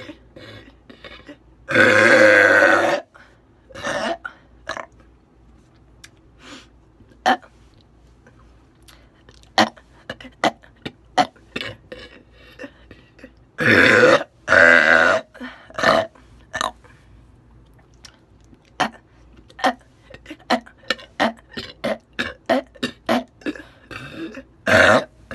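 A woman belching: one long loud burp about two seconds in, two more back to back near the middle, and another starting right at the end, with many short sharp clicks from her mouth in between.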